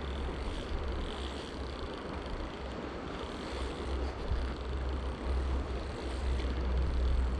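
Steady rushing of a mountain stream, with a low wind rumble buffeting the microphone.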